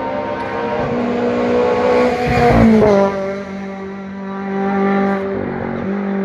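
A rally car's engine held at high revs passes close by about two and a half seconds in, its note dropping in pitch as it goes past.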